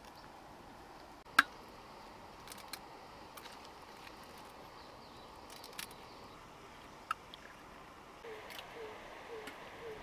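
Eggshells clicking as eggs are handled and cracked over a clay pot: one sharp click about a second and a half in, then a few fainter ones. Near the end a short falling animal call starts repeating about twice a second.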